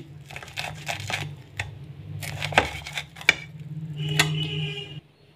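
Sharp kitchen knife sawing through crunchy pan-toasted bread slices, the blade scraping and clicking against a ceramic plate, with a short ring from the plate about four seconds in. A low steady hum runs underneath, and everything stops abruptly near the end.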